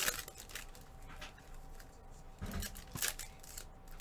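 Scattered short clicks and rustles of handling, with a dull thump about two and a half seconds in.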